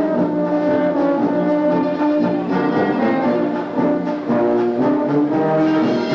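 Danube Swabian brass band (Blasmusik) playing a tune live, brass instruments sounding held notes and a moving melody in phrases, with short breaks between phrases about two and four seconds in.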